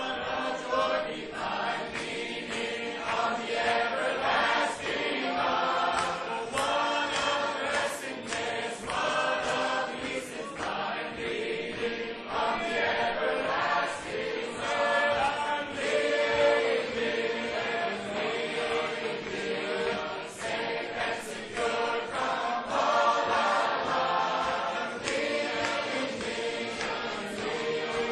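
A choir singing a hymn unaccompanied, in sustained sung phrases.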